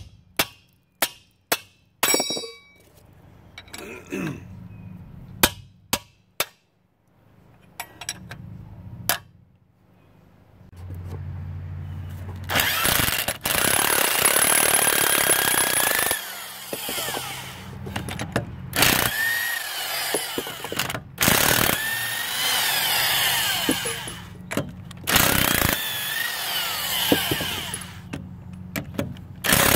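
A series of sharp metal strikes as a sledgehammer hits a lug wrench set on a seized, rusted lug nut of a truck's dual wheel. About twelve seconds in, a large impact wrench starts hammering in bursts of a few seconds, with short pauses, as it breaks the lug nuts loose and spins them off the rusty studs.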